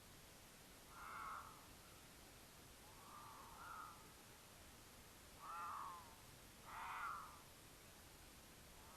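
Mountain lion caterwauling: four short calls, each under a second, the last two close together. This is the courtship call a cougar gives when the female is in heat.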